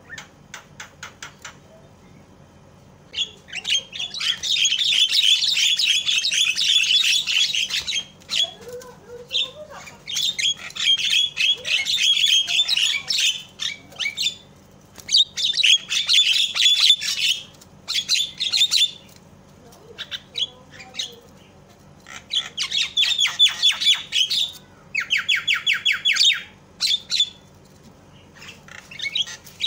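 Javan myna giving loud, harsh chattering calls in repeated bursts of one to four seconds. Near the end comes a quick run of evenly spaced notes.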